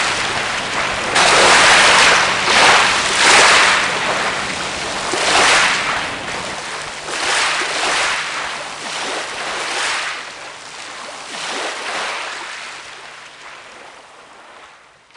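Small waves washing onto a shingle beach: a hiss that surges and falls back about every one to two seconds, fading away toward the end.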